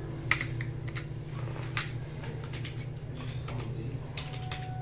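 Computer keyboard typing: a string of irregular clicks over a steady low hum.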